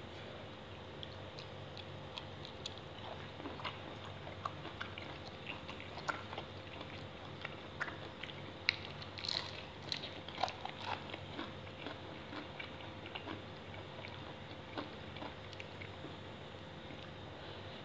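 Close-up eating sounds: a man biting and chewing raw shrimp chilled in fish sauce, with fresh leafy greens. Scattered small crunches and mouth clicks come thickest about halfway through, over a faint steady hum.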